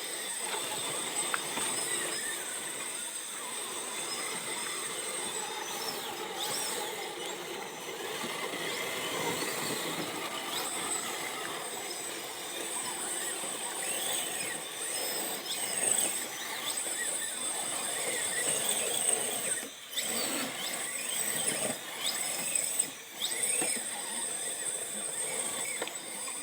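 Electric motor and geartrain of an RC rock crawler whining under throttle, the high whine breaking off and coming back and sliding up and down in pitch as the truck crawls.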